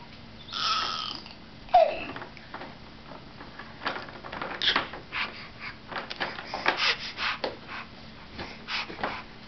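A baby squealing and babbling in short, sharp calls. From about four seconds in, a run of quick clicks and knocks comes from his hands on the plastic exersaucer toys.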